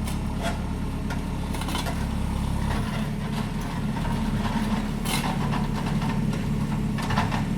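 Kanga mini loader's engine running steadily, with a few sharp metallic clanks over it, the loudest about five seconds in; the deepest part of the engine note drops away a little under three seconds in.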